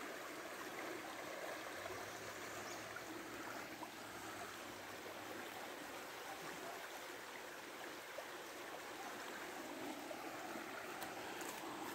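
A forest stream swollen by heavy rain and running fast: a steady, even rush of water.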